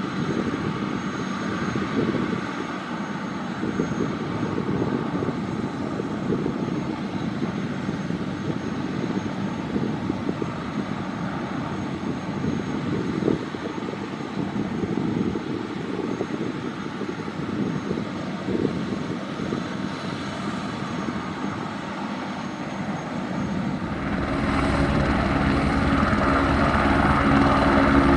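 Airbus H125M helicopter's turbine running with the rotor turning: a steady whine and rush. About 24 seconds in it grows louder, with a fast, even rotor beat and new steady tones coming in.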